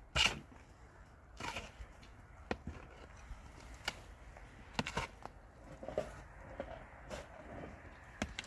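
Steel shovel scraping and chopping into soil in a metal wheelbarrow as the load is mixed, in irregular strokes every second or so, the first the loudest.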